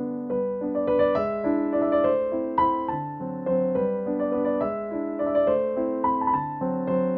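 Background piano music: a melody of struck notes over lower held chords.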